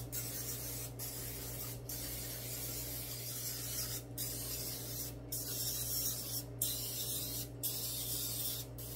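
Aerosol butter cooking spray hissing as a cupcake pan is coated, in long bursts with a brief break every one to two seconds.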